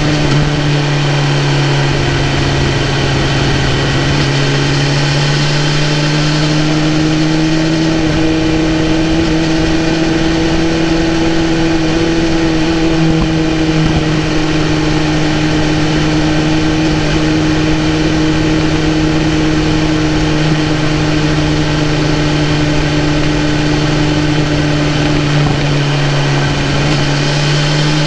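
2018 BMW S1000RR's inline-four engine running steadily at a cruise, its pitch rising a little and easing off again, with wind and road noise.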